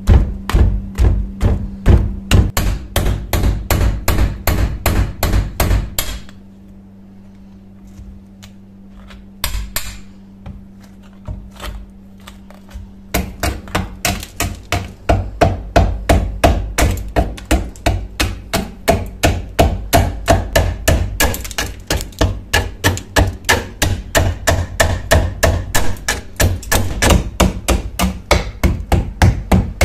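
A hand-held chisel is jabbed repeatedly into dried mud caked hard on a rusty shovel blade, chipping it away in quick sharp hits about three a second. The hits stop for several seconds from about six seconds in, then start again and carry on steadily.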